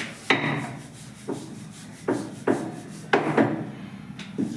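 A kitchen utensil scraped in short strokes against a pan or board, about seven strokes at an uneven pace.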